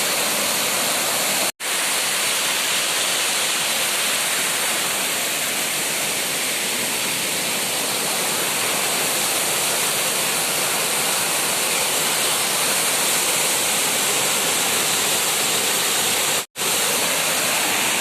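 Arbi waterfall running as a small dry-season flow over rocks, a steady hissing rush of falling water. It drops out abruptly for an instant twice, about a second and a half in and near the end.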